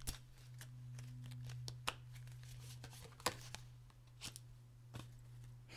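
Oracle cards being handled as one is drawn from the deck: a few scattered soft taps and rustles of card stock, over a steady low hum.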